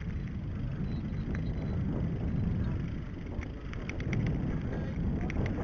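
Mountain bike rolling along a gravel track: a steady low rumble of tyres and wind on the microphone, with small clicks and rattles from about three and a half seconds in.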